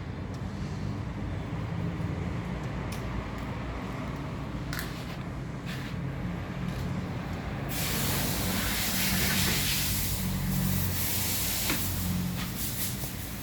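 A steady low mechanical hum, joined about eight seconds in by a loud spraying hiss that goes on until near the end.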